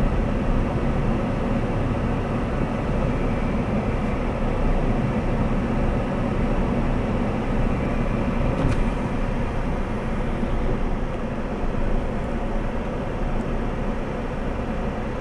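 A vehicle's engine running steadily at low speed, a continuous low rumble.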